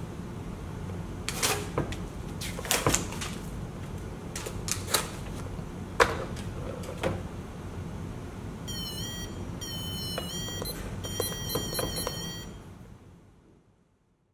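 Hands handling paper and sticky notes on a wooden activity board: a series of sharp clicks and taps. Then a small electronic buzzer plays a short high-pitched beeping tune that steps up and down in pitch for about three seconds, and the sound fades out.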